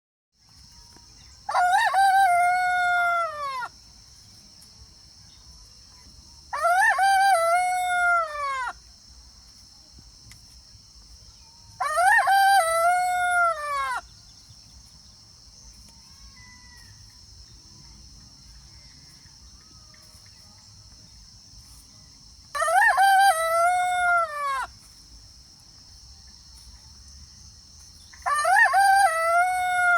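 A rooster crowing five times, each crow a cock-a-doodle-doo about two seconds long whose pitch drops at the end, spaced several seconds apart with a longer gap in the middle. A steady high hiss runs underneath throughout.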